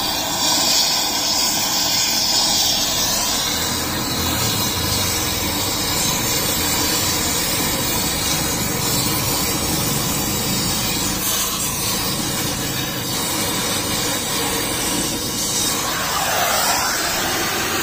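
Gas welding torch hissing steadily as its flame heats and melts a seized wheel bolt with stripped threads out of a car's alloy wheel hub.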